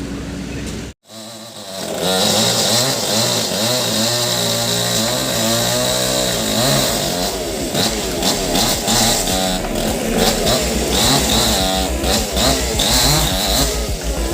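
STIHL chainsaw running at high throttle, its engine pitch wavering up and down as it cuts into wood. The sound drops out abruptly about a second in and comes back loud about a second later.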